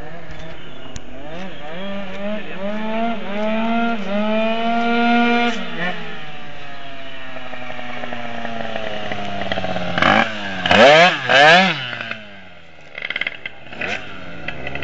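Malaguti F12 scooter's tuned two-stroke engine, with a Malossi 7T cross cylinder kit and a Roost expansion pipe, pulling hard with its pitch climbing steadily for several seconds, then the pitch sinking as it runs on. About ten seconds in come two sharp, loud revs of the throttle, followed by a quieter stretch and a few short blips.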